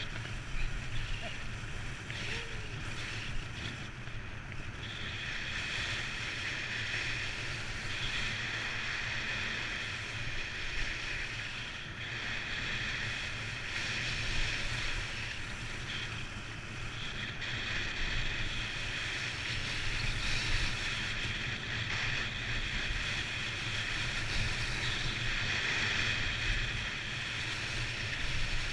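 Steady hiss of sliding over snow on a downhill run, with low wind rumble on the microphone.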